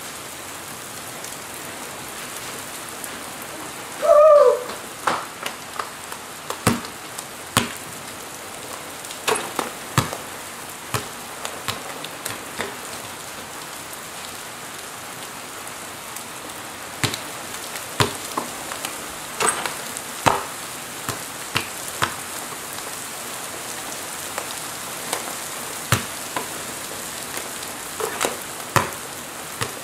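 Heavy rain falling steadily, with scattered sharp taps and drips throughout. About four seconds in there is a brief, louder sound with a slightly falling pitch.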